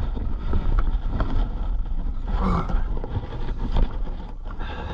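Steady low rumble of wind and handling noise on the microphone, with scattered knocks and rustles. A faint voice is heard briefly about two and a half seconds in.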